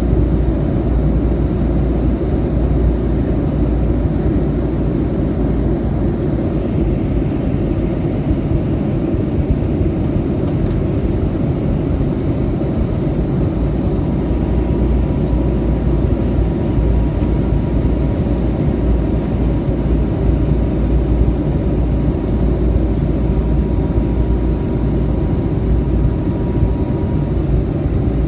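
Steady engine and airflow noise inside the cabin of a Boeing 757-200 on descent, heard at a window seat beside the wing. A faint high whine drops away about six seconds in, and a faint thin tone comes in about halfway and stops near the end.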